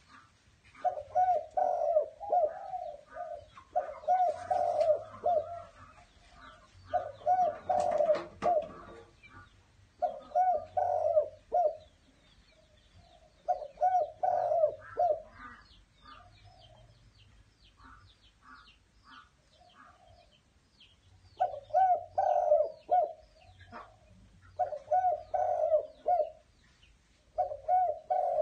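Malay dove (spotted dove) cooing, phrase after phrase, each phrase about a second long, with a pause of several seconds in the middle. Faint high chirps sound in the background, and a short burst of noise comes about eight seconds in.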